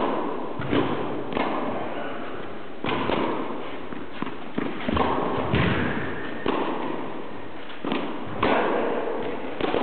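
Tennis balls being struck by rackets and bouncing on the court during a rally: a string of sharp, irregular hits about once a second.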